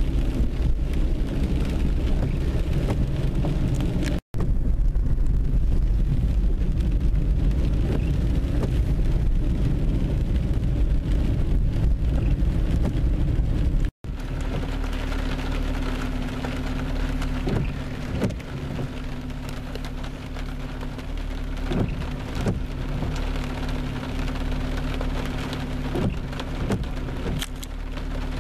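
Rain on a car's windscreen and roof heard from inside the cabin, over the car's engine and road rumble. About 14 seconds in, after a brief dropout, the car is stopped: the rumble falls away, leaving a steady engine hum with scattered raindrop taps.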